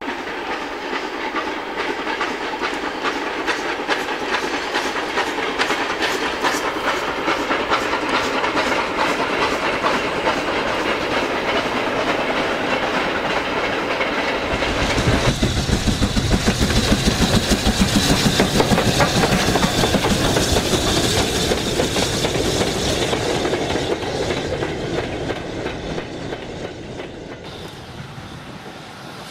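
Model train running along the track, its wheels clicking rapidly over the rail joints. About halfway through, a closer and louder pass with more rumble takes over, then the sound eases off near the end.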